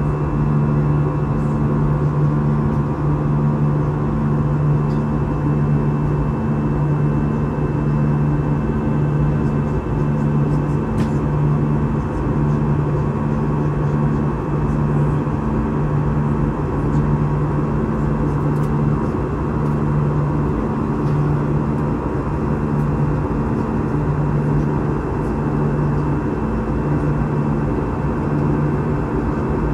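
Jet airliner cabin noise in flight: a steady rush of engine and airflow noise with a low droning hum that throbs about once a second, the beat of two engines running at slightly different speeds.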